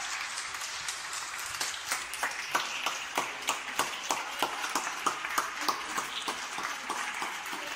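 Hands clapping close by, about three claps a second, over a steady patter of scattered clapping from neighbours at their windows.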